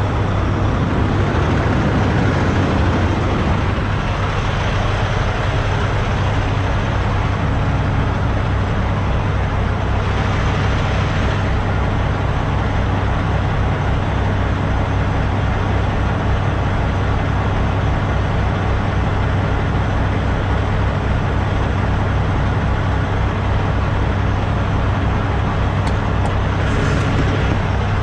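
Semi-truck diesel engine idling with a steady low hum. A few light clicks come near the end.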